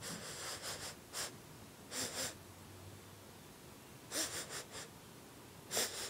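Short breathy puffs of air, each less than a second long, coming in clusters about five times.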